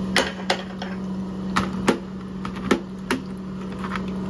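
Connecting-rod honing machine running with a steady hum, with about six sharp metal clinks as a steel connecting rod is handled and turned on the machine during small-end honing.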